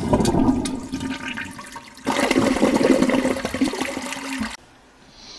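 Rushing water with a steady low hum, in two surges; it cuts off sharply about four and a half seconds in.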